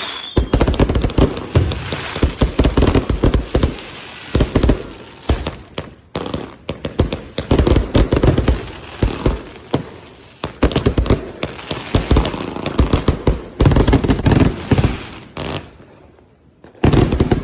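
Consumer fireworks firing in a barrage of rapid, loud bangs and crackles, in clusters with short lulls between them. A falling whistle sounds right at the start, and after a pause near the end comes one last quick volley.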